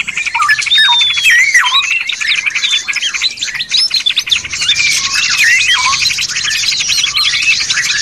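Several songbirds singing over one another: quick whistled slurs, swoops and chatters, over a fast, steady rattling trill. It is a layered compilation of bird-song recordings used as master song for training caged birds.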